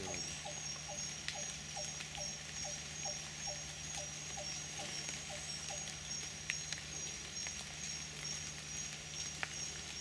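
Rainforest canopy ambience: insects keep up a steady, pulsing high-pitched drone. For the first half an animal repeats a short, slightly falling call about three times a second, and a few sharp ticks sound at intervals.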